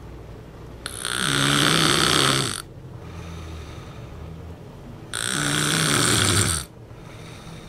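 A person snoring: two loud, rattling snores, each lasting about a second and a half, the first about a second in and the second about five seconds in, with quieter breathing between them.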